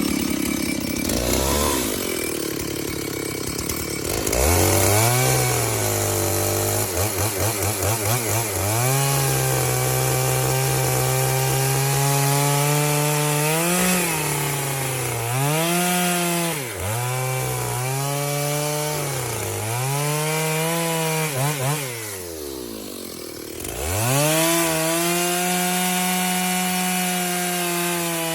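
A 64 cc chainsaw at full throttle cutting through wood. The engine pitch sags again and again as the chain bites and takes load, then recovers each time. About 22 seconds in it falls away briefly, then revs back up and holds steady near the end.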